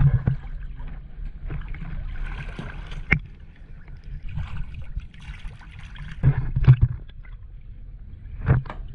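Small boat under way on the water: a steady low motor rumble with wind and water noise. There are several louder knocks, about 3 s, 6.5 s and 8.5 s in.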